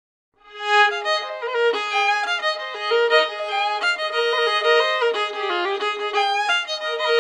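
Fiddle music: a lively tune of quick, changing notes that starts about half a second in after silence.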